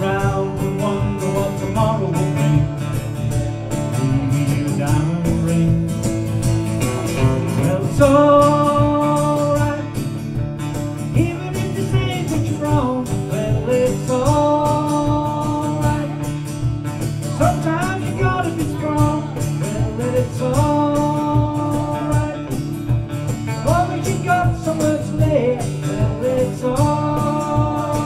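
Acoustic guitar strummed steadily while a man sings into a microphone, a live cover of a folk-rock song, with long held sung phrases recurring every few seconds from about eight seconds in.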